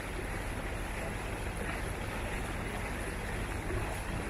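Boat engine running steadily under way, a low even hum under a wash of wind and water noise.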